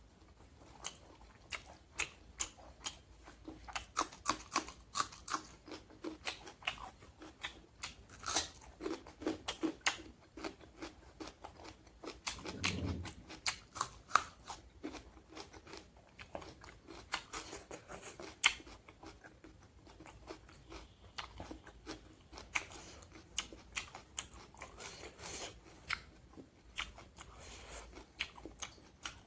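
Close-miked eating: a person biting and chewing food, with many irregular sharp crunches and wet mouth clicks coming in flurries, and a brief low sound about 13 seconds in.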